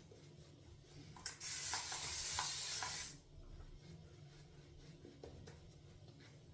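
A water spray bottle misting for just under two seconds, a steady hiss that starts and stops abruptly, adding water to the shaving lather. Faint swishing of the shaving brush is heard around it.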